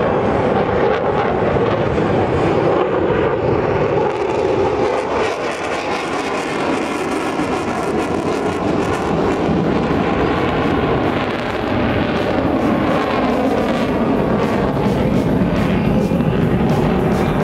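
Fighter jet engines roaring loudly and continuously through a high-G display manoeuvre, with the pitch slowly sweeping and wavering as the jet turns overhead.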